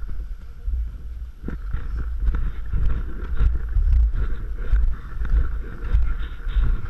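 Snowboard sliding and scraping over tracked, packed piste snow, mixed with low wind rumble on the microphone; the rushing noise rises and falls unevenly.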